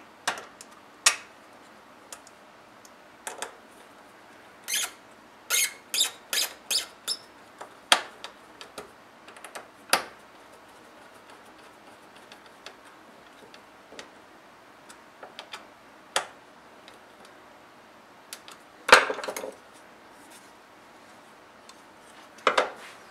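Scattered sharp clicks and knocks of hard 3D-printed plastic parts and a hex key being handled and fitted together on a wooden bench. A quick run of about six clicks comes a third of the way in, and the loudest clatter comes near the end.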